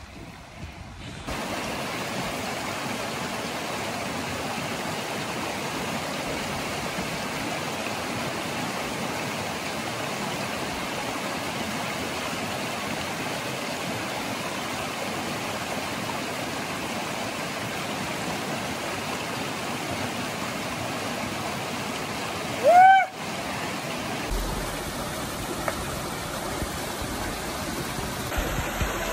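Glacial meltwater stream rushing steadily close by. Near the end comes one brief, loud, high-pitched cry that rises and falls.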